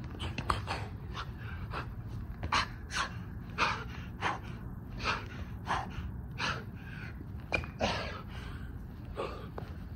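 A man breathing hard while doing burpees, in short heavy puffs at about one and a half a second.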